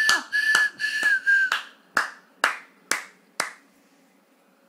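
Hands clapping a steady beat, about two claps a second, stopping about three and a half seconds in. Over the first second and a half someone whistles a few short held notes on one pitch.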